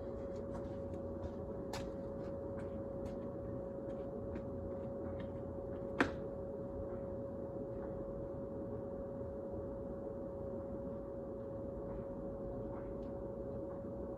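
Clothes dryer running, heard at its outside exhaust vent: a steady hum with a constant tone and rushing air. Faint ticks come early on, and there is one sharp click about six seconds in.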